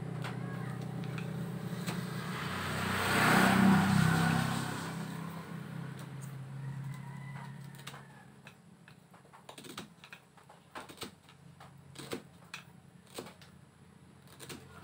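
A passing motor vehicle's engine hum swells to a peak a few seconds in and fades away. In the second half, irregular light clicks and scrapes come from a metal tool picking at the burnt windings of a motorcycle primary coil.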